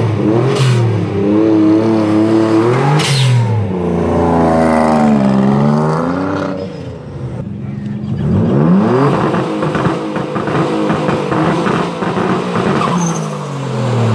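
Nissan 300ZX V6 engines being revved hard. One car blips the throttle several times with the pitch climbing and falling. After a short lull about halfway through, a second car climbs to high revs, holds them, and lets them drop.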